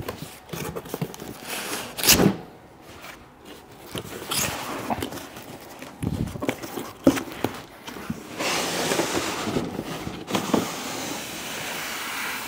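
Cardboard shipping box being handled and shifted: several separate knocks and bumps, then a couple of seconds of cardboard rubbing and scraping about two-thirds of the way through.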